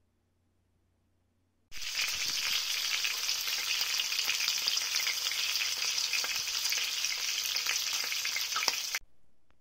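Marinated chicken pieces frying in hot oil in a nonstick frying pan: a steady sizzling hiss with scattered crackles and pops. It starts abruptly about two seconds in and cuts off suddenly shortly before the end.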